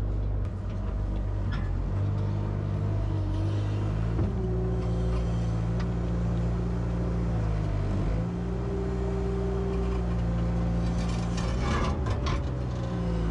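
Diesel engine of a compact construction machine running steadily, its note sagging and recovering a few times as the hydraulics take load. A short cluster of knocks comes near the end.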